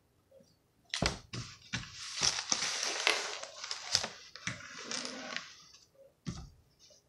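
Markers set down on a table with a few sharp knocks, then a long paper rustle as a notebook is pulled across the table into place, and a single knock near the end.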